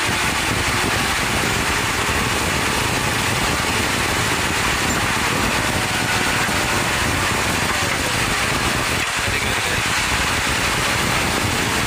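JCB backhoe loader's diesel engine running steadily close by.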